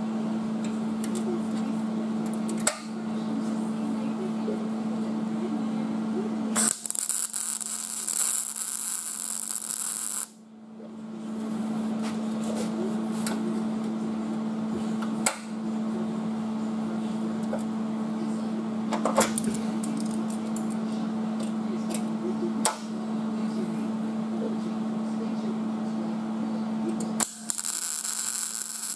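MIG welder arc crackling and hissing in two bursts, one of about three and a half seconds near the middle and a shorter one near the end, as plug welds go into the drilled holes of a sheet-metal rocker panel. A steady electrical hum runs underneath, with a few sharp clicks in between.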